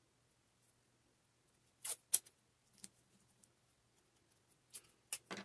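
Washi tape being pulled off its roll and torn by hand: a few short rips, a pair about two seconds in (the second the loudest) and a quick cluster near the end.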